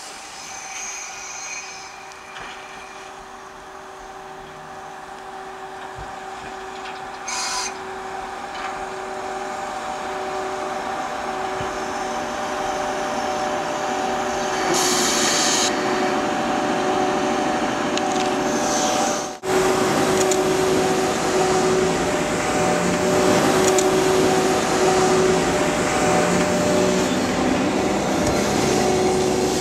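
Sleeper express train, an electric locomotive hauling blue-train sleeping cars, rolling slowly into the station and growing steadily louder as it nears and passes. Steady high squealing tones ride over the grinding of wheels and brakes, with brief hisses about 7 and 15 seconds in.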